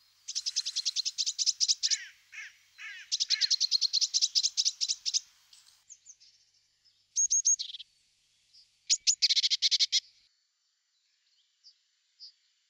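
European greenfinch nestlings begging for food at the nest: fast trains of high, rapid chirps in several runs, with a few short falling calls about two seconds in, fading out after about ten seconds.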